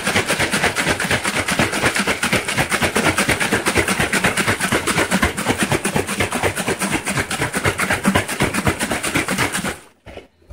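Lukewarm water sloshing inside a one-gallon plastic honey jug that is shaken hard and fast to dissolve the honey left in it: a rapid, even splashing rhythm that stops abruptly near the end.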